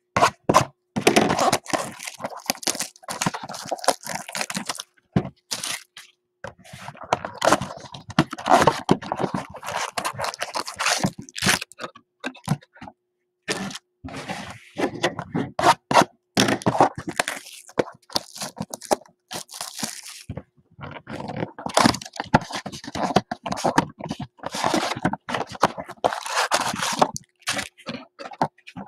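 Cardboard blaster boxes of trading cards being torn open and the foil card packs inside crinkling as they are pulled out and laid down: spells of tearing and crinkling with sharp cracks, broken by short pauses.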